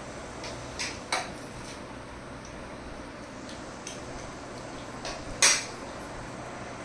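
Light clinks of stainless steel plates being handled and set down, two close together about a second in and a sharper one about five and a half seconds in, over a steady hiss.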